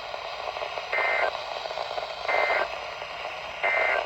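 NOAA weather radio receiver sounding the Emergency Alert System End of Message signal: three short bursts of two-tone digital data, each about a third of a second long and about 1.3 s apart, over steady radio hiss. It marks the end of the severe thunderstorm watch broadcast.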